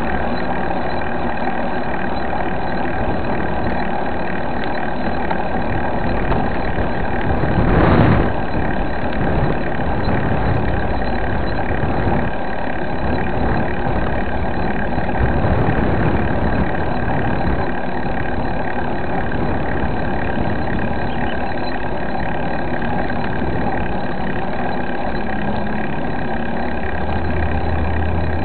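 Steady rumbling noise from riding a mountain bike along a road: wind and road noise on the bike-mounted camera's microphone, with a brief louder surge about eight seconds in.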